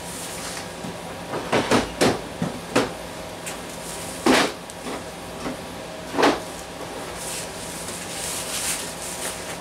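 Knocks and clunks of tools being handled: a dust-extractor hose held in one hand and a cordless sander lifted off a shelf. There is a cluster of small knocks about a second and a half in, then single louder clunks around four and six seconds in, over a faint steady hum.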